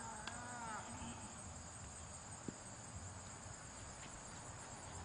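Steady high-pitched chorus of insects in the trees. A faint voice is heard briefly at the start.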